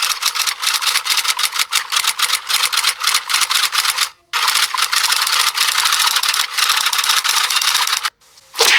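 Rapid, irregular clicking in two runs, broken by a short pause about four seconds in, then a brief whoosh near the end.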